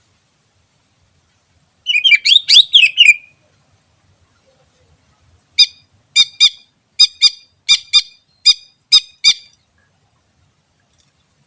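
Cucak ijo (green leafbird) singing: a short burst of quick, gliding whistled notes, then after a pause a run of about ten sharp, clipped notes, most of them in pairs.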